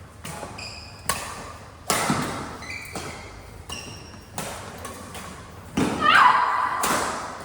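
Badminton rally: rackets striking the shuttlecock with sharp hits about a second apart, between them short high squeaks of shoes on the court floor.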